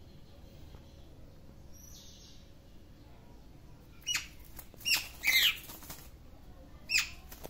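A rat trapped in a wire cage trap squealing: four short, high-pitched squeaks that fall in pitch, in the second half, as a kitten paws at it through the mesh.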